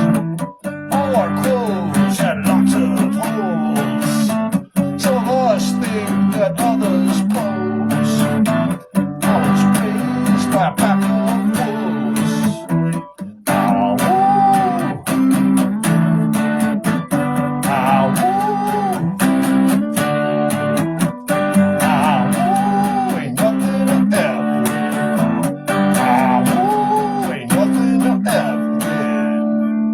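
Acoustic guitar music: strummed chords with a melody line rising and falling above them, thinning near the end to a single ringing note.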